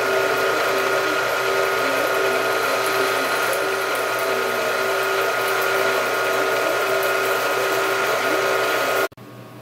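Drill press running, its twist drill boring the undersized hole in an aluminum block before reaming to half inch: a steady mechanical whine with several held tones, cutting off abruptly about nine seconds in.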